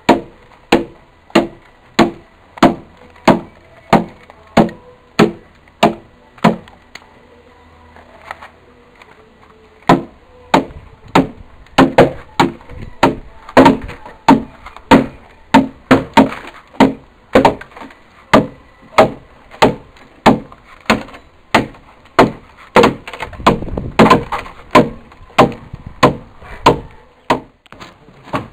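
Axe chopping into a peeled log, hewing it to shape by hand. There are sharp, loud strikes about one and a half times a second, a pause of about three seconds near a third of the way in, then quicker strokes.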